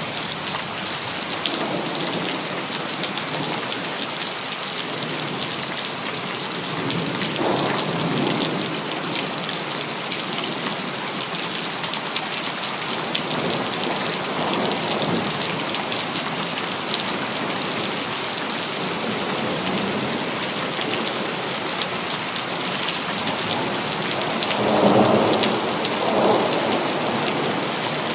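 Steady rain falling in a city, with low rumbles of thunder rolling in several times, the loudest near the end.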